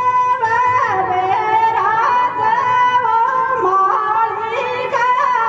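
Rajasthani Tejaji devotional folk song: a woman's high, wordless melody of long held notes with short ornamental turns between them.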